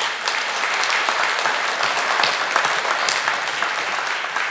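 Audience applauding: many people clapping in a steady, dense patter that eases a little near the end.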